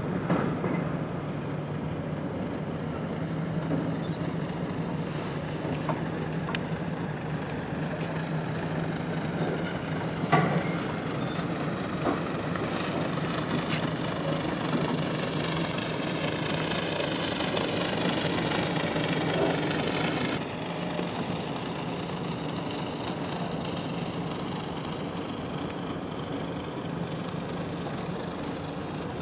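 A car driving slowly, its engine humming steadily under tyre and road noise. A hissier stretch of tyre noise builds through the middle and cuts off suddenly about twenty seconds in, with a few sharp knocks along the way.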